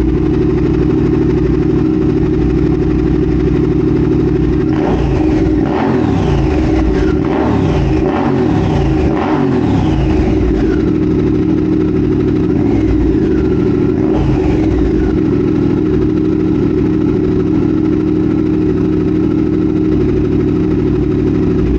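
2022 Triumph Speed Twin 1200's parallel-twin engine idling through an X-pipe and Cone Engineering shorty mufflers, with a run of quick throttle blips from about five seconds in, the revs rising and falling several times before settling back to idle around fifteen seconds in. The mufflers have very little baffling, so the exhaust is loud, almost like a straight-piped bike.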